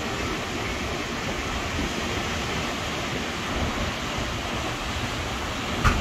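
Ocean surf washing onto a sandy beach, a steady rush, with wind rumbling on the microphone. A brief knock just before the end.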